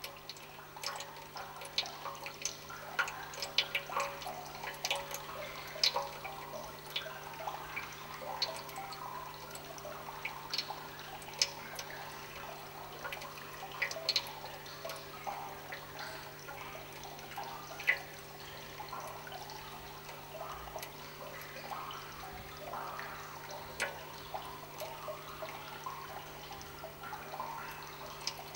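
Irregular drip-like clicks, scattered and uneven, denser in the first half, over a steady low hum.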